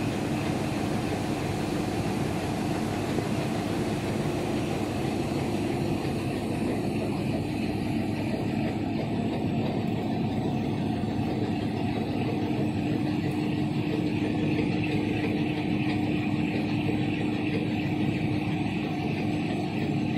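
Rotogravure printing machine running, its plastic film web feeding over the rollers: steady machine noise with a constant low hum.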